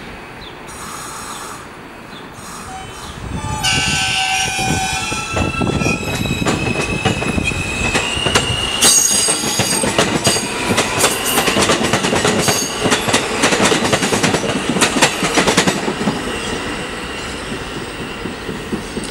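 New York City subway train sounding its horn about three and a half seconds in, a chord of several held notes lasting a couple of seconds, then steel wheels squealing with a steady high tone and a rapid clatter of wheels over rail joints as trains run through the station.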